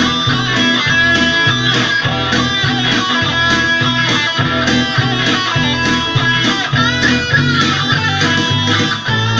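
Yamaha Pacifica electric guitar played with picked melody notes, some of them bent, over a steady low bass pattern that alternates between two notes in an even rhythm.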